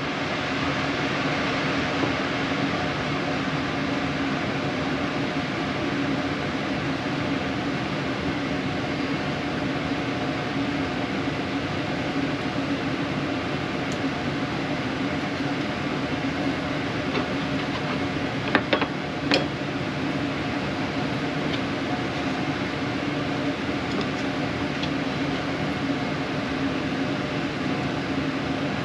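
Steady mechanical hum of an RV air conditioner's fan running. A couple of short knocks about two-thirds of the way through, a knife against a plastic cutting board.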